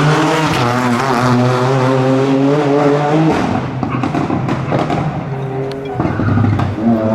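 Rally car engine at high revs, holding a steady note for about three seconds, then backing off into rougher, uneven running. It picks up and climbs again near the end.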